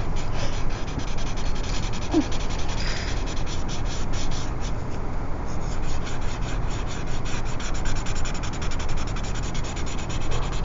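A paper blending stump rubbing back and forth over graphite on drawing paper, a continuous rubbing sound as the pencil shading is blended smooth.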